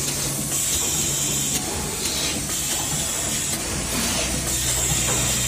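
Automatic pouch filling and packing machine running, with a steady low hum and a hiss that comes on for about a second roughly every two seconds as it cycles.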